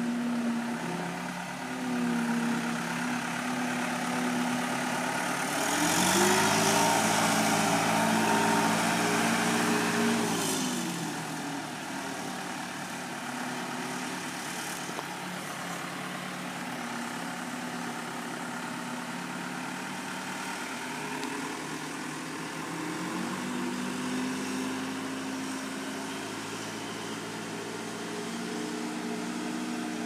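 Case 430 skid steer's diesel engine running as the machine drives on a dirt track. About six seconds in the engine climbs to a higher, louder pitch for around four seconds before dropping back, then rises a little again later.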